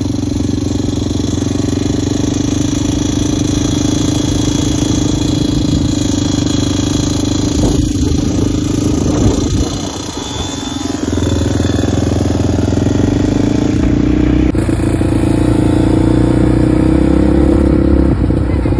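Motorcycle engines running steadily while riding. The level dips briefly about halfway, and the sound changes abruptly about three-quarters through.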